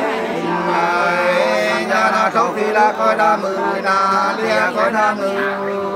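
Nùng hát sli folk song sung by men without instruments, in long, drawn-out notes that slide between pitches.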